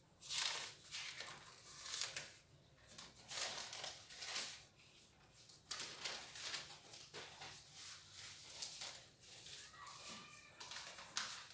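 Marker pen writing on a whiteboard: a run of short, uneven scratchy strokes.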